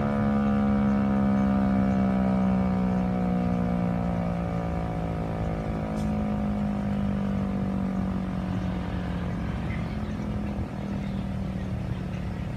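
Federal Signal Eclipse 8 tornado siren winding down at the end of its test, its tone slowly falling in pitch and fading over a steady low drone.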